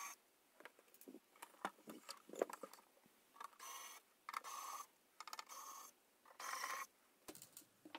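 Electric precision screwdriver whirring in about four short spurts of half a second or less in the second half, backing out the screws of a metal equipment cover. Small clicks and taps of the bit against the screws come before them.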